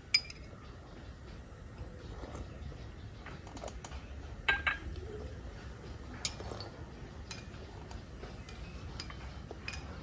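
Metal teaspoons clinking and scraping against small saucers and tea glasses: a sharp clink right at the start, a ringing double clink about four and a half seconds in, and scattered lighter taps in between.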